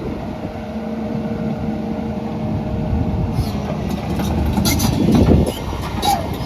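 Cummins diesel engine of an XCMG XE210CU excavator running steadily, joined about three seconds in by a run of metallic clanks and knocks, the loudest near the end.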